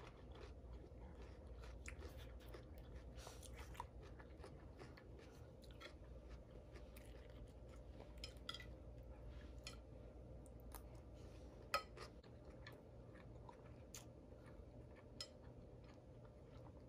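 Faint close-up chewing of a mouthful of birria taco and rice, with small wet mouth clicks. One sharper click comes about two-thirds of the way through, over a steady low hum.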